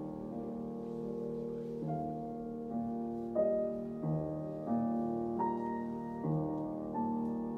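Solo Steinway grand piano playing a slow, soft passage, with a new chord struck about every three quarters of a second and each one left ringing.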